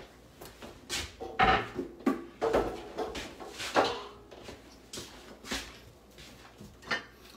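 Kitchen things being handled and set down on a counter, with a cutting board being cleared away: a string of about a dozen separate knocks and clatters, some sharp, some duller thuds.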